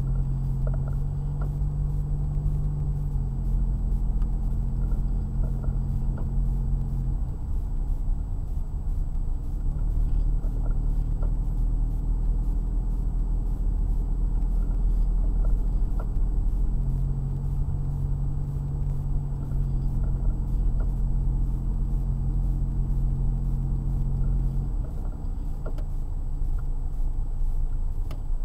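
Car driving on a snow-covered road, heard from inside the cabin: steady low road rumble with an engine hum that shifts in pitch a few times.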